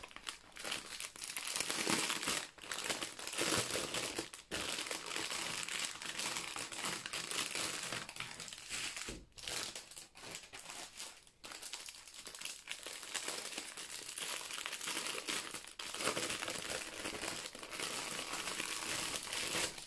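Clear plastic packaging crinkling as packs of diamond-painting drills are unwrapped and handled, with a few brief pauses.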